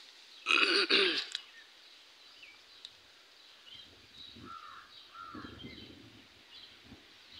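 A bird calls loudly and harshly twice in quick succession about half a second in, then small birds chirp faintly over steady outdoor background noise.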